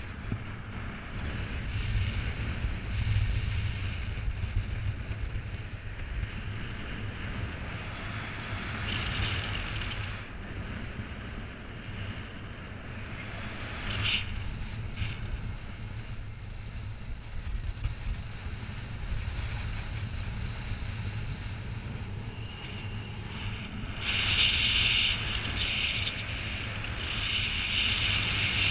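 Airflow in paraglider flight buffeting a GoPro's microphone: a steady low wind rumble with a hiss above it. The hiss grows louder about four seconds before the end.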